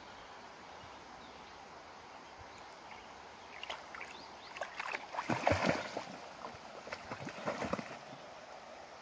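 A small dog running into shallow river water, splashing in a quick irregular burst about halfway through that is loudest just past the middle, then settling into swimming as the splashes fade near the end.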